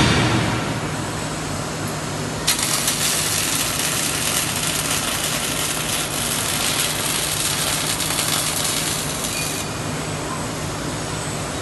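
Robotic MIG/MAG welding arc crackling and hissing steadily, starting about two and a half seconds in and cutting off near the end, over a low steady machine hum. A brief loud burst at the very start.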